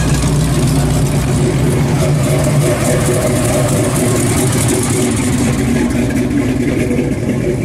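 A red 1955 Chevrolet's engine runs with a deep, steady exhaust note as the car rolls away. The low note drops off about three seconds in, leaving quieter engine sound.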